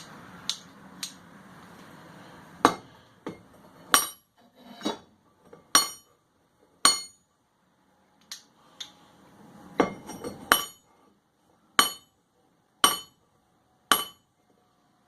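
Hammer striking steel: about a dozen sharp, ringing metallic blows, roughly one a second, with a pause in the middle.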